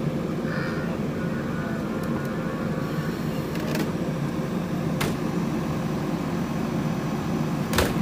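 Heavy diesel engine running steadily at a low, even drone, with a few sharp knocks, the loudest near the end.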